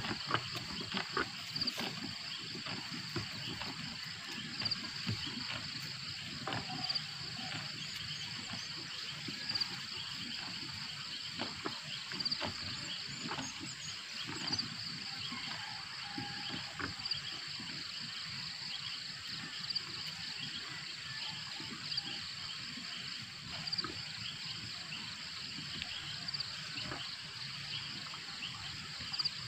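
Steady, high-pitched chorus of insects and frogs calling, with a few faint scattered knocks.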